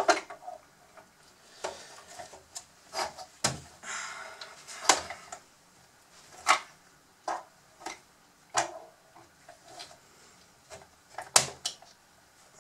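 Hard plastic parts of a Bruder toy bulldozer's chassis clicking and knocking as they are handled and its snap clips are pried open, with a short scrape about four seconds in.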